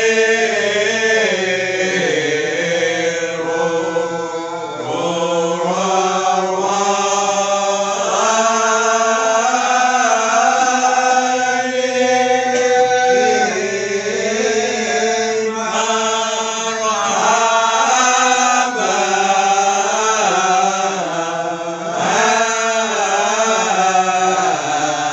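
A group of men chanting marhaban, Malay devotional verses in praise of the Prophet, together in long drawn-out melodic lines. There are no instruments.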